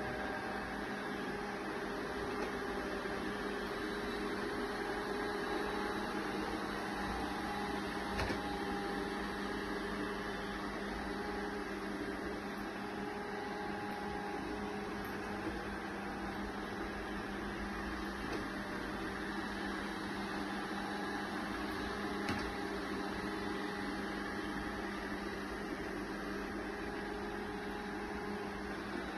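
MONSGA robot vacuum running, a steady motor hum with a constant whine.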